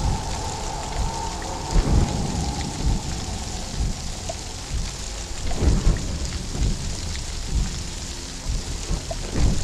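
Steady rain with low rumbles of thunder swelling up a few times, about 2, 6 and 9 seconds in.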